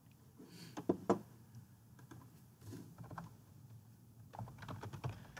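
Scattered computer keyboard keystrokes, a few at a time, with two sharper key clicks about a second in.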